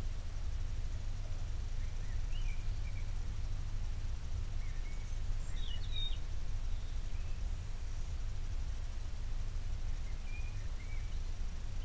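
Night-time garden ambience: a steady low rumble with a few short, faint high chirps scattered through it, the clearest about six seconds in.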